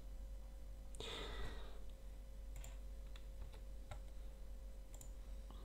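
Faint room tone with a low steady hum, a soft rustle about a second in, and a few light scattered clicks.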